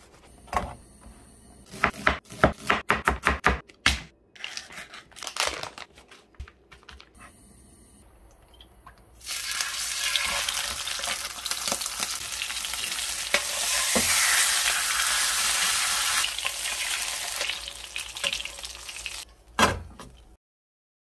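A knife saws through a crusty baguette in a quick run of crackling strokes. From about nine seconds in, a salted mackerel fillet sizzles loudly in hot oil in a frying pan. It ends with a knock and a sudden cut to silence.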